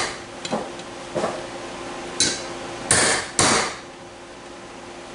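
Hammer striking a pin punch to drive a stuck, rusted roll pin out of a 1960s Lincoln Continental power-seat screw jack: five sharp metal blows, the two hardest close together about three seconds in. The pin is tough to move, where such pins usually go out more smoothly.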